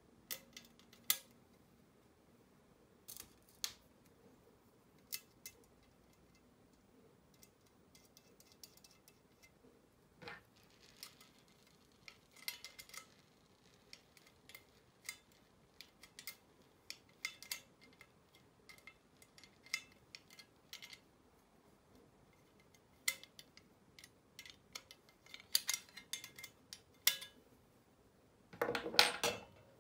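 Small metal clicks and clinks of screws, nuts and thin aluminium sheet parts being handled and fitted together by hand, in irregular scattered taps. Near the end comes a louder burst of scraping.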